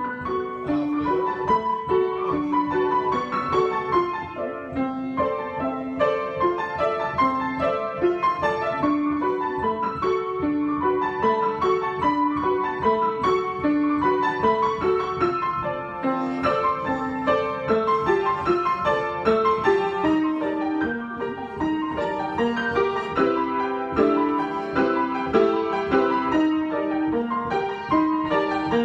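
Solo piano improvisation: a steady, flowing stream of notes in the middle register, played without a pause.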